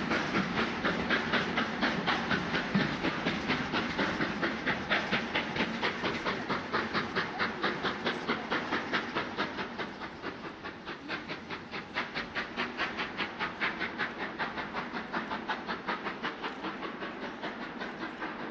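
Steam locomotive chuffing at a steady rhythm, about three exhaust beats a second, with a hiss of steam, slowly fading.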